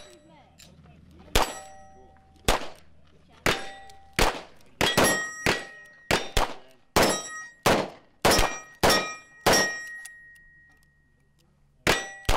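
A rapid string of about fifteen .22 LR gunshots on a shooting line, including shots from a Colt King Cobra Target revolver. Many shots are followed by a short metallic ringing as steel targets are hit. The firing stops for about two seconds near the end, then two more shots come.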